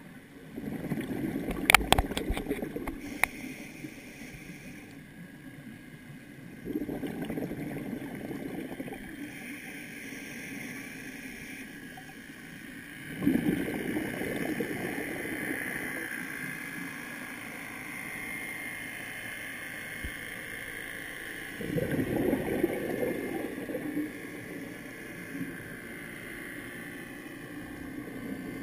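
Scuba regulator exhalations heard underwater: four bursts of bubbling, each two to three seconds long and several seconds apart, with a steady low hiss between them. A few sharp clicks come near the start.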